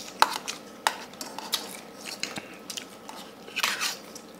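Metal spoon clinking and scraping against a stainless steel bowl while scooping rice: a handful of sharp clinks, then a longer scrape near the end.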